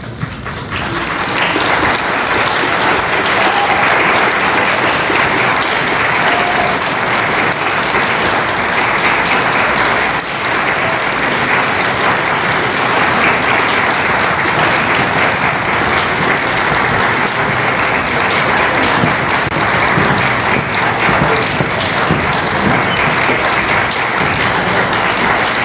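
Audience applauding, building up over the first second or so and then holding steady and even.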